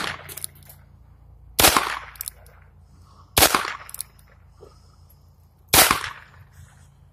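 Heritage .22 revolver fired three times, a sharp crack each time, roughly two seconds apart.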